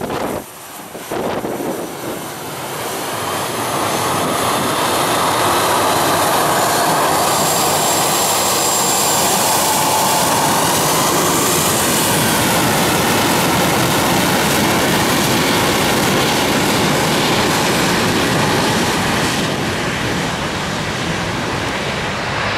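Boeing 737-800's CFM56 jet engines spooling up for takeoff: loud, steady jet noise with a high whine that rises and bends, building from a few seconds in and easing slightly near the end.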